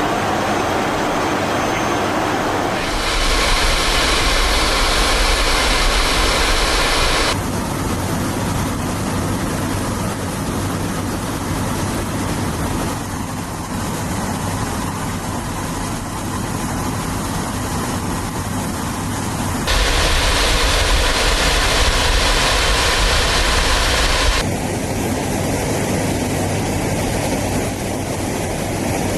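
Continuous roar of the Airbus A400M's four turboprop engines, its character switching abruptly several times as the footage cuts between shots.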